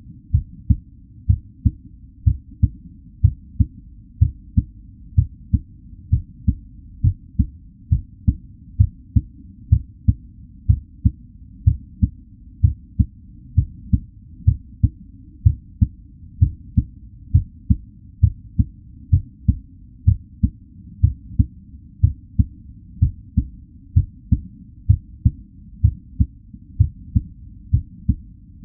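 Real human heartbeat at a normal resting rate: an even, steady rhythm of low, muffled thuds, about two a second.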